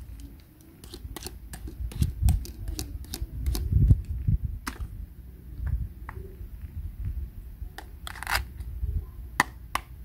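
Hard plastic toy fruit pieces clicking and tapping against each other as they are picked up and handled, with low thuds of handling close to the microphone. A short rasp comes about eight seconds in.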